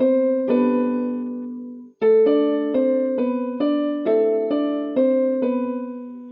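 Piano music: a slow melody of single struck notes over held chords, about two notes a second, breaking off briefly about two seconds in and starting again.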